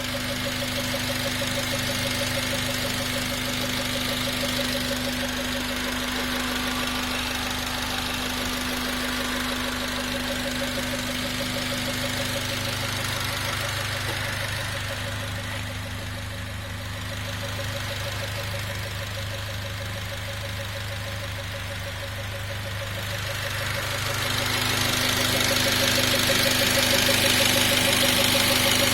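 Honda K20A four-cylinder engine running steadily, with a whirring rotational noise that pulses rapidly. The engine is quieter in the middle stretch and louder again near the end. The owner says the noise has grown louder over months and seems to come from the left side of the engine, and wonders whether it is the chain tensioner.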